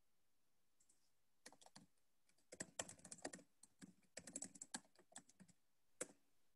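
Faint typing on a computer keyboard: irregular runs of quick key clicks over several seconds.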